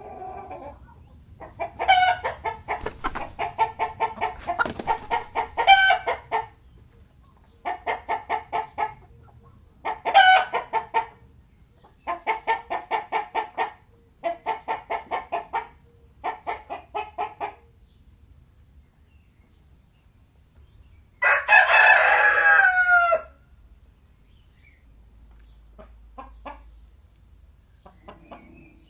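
Crested crown chicken (ayam mahkota) clucking in several runs of rapid, evenly pulsed notes, then crowing once, a call of about two seconds that falls in pitch at the end, about 21 seconds in.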